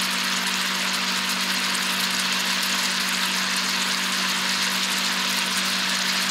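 Grouse meat frying in a cast-iron skillet: a steady sizzle with fine crackling, over a steady low hum.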